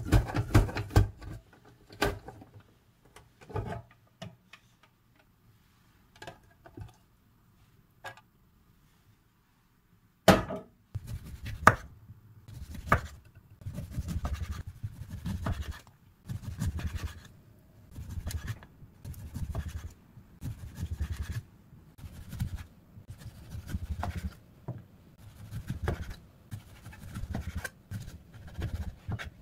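A chef's knife slicing limes on a wooden cutting board: a steady run of cutting strokes, each landing with a dull thud on the board. Before that come scattered light clicks and knocks of a plastic slicer and its clear container being handled, then a sharp knock about ten seconds in.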